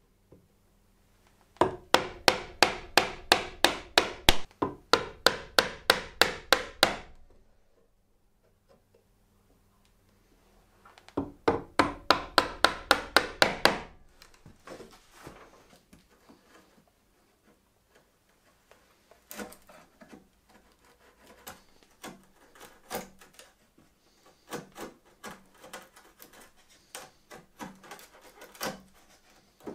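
Steel bench chisel being struck on the handle in two quick runs of about four blows a second, chopping into hardwood to cut a new tenon. After that the chisel is pushed by hand to pare the wood, giving quieter, irregular scraping and small clicks.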